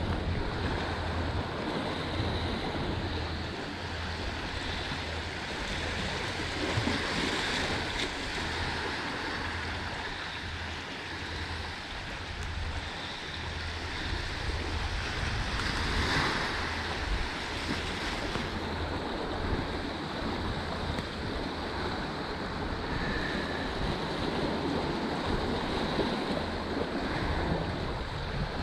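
Low surf washing into a small rocky cove, swelling and easing as each wave surges in, with wind buffeting the microphone.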